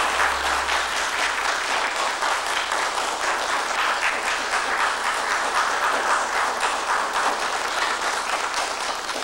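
A hall full of people applauding steadily, a dense patter of many clapping hands that eases slightly near the end.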